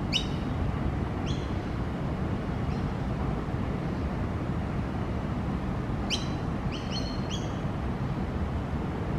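Young Australian magpie giving short, high squeaky calls: one right at the start, another about a second later, a faint one near three seconds, then a quick run of four about six to seven and a half seconds in. A steady low rumble of wind or distant traffic lies underneath.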